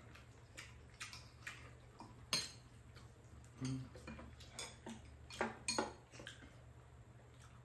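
Metal spoon and chopsticks clinking and scraping against ceramic bowls during a meal: scattered light clicks at an uneven pace, the loudest about two seconds in and a pair close together past the middle.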